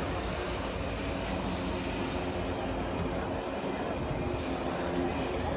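Aerial cable-car line running: a steady mechanical rumble of cabins and cable passing over the station's pulleys, with a faint high squeal near the end.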